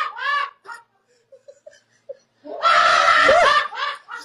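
A high-pitched voice crying out: a few short rising-and-falling cries, a pause, then a long held shriek of about a second, followed by more short cries.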